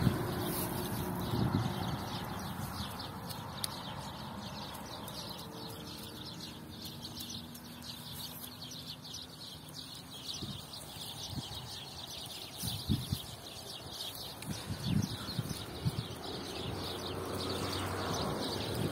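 Goats moving and grazing close by, with soft thuds and rustles bunched in the second half, over steady high chirping of birds.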